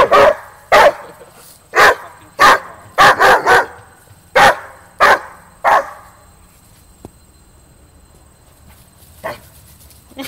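A dog barking over and over, about a dozen short, loud barks in quick succession, then falling quiet with one more bark near the end. These are play barks from a dog waiting for its ball to be thrown.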